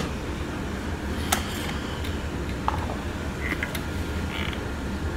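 A plastic vacuum dust canister being picked up and handled, giving a few light clicks and knocks over a steady low hum.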